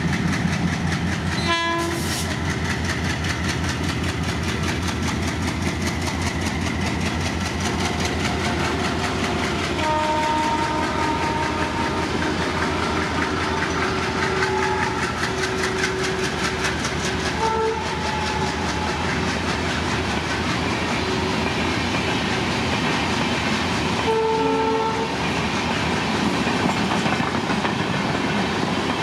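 Rajdhani Express LHB passenger coaches running past at speed: a fast, steady clickety-clack of wheels over the rail joints, with a few short steady tones every several seconds.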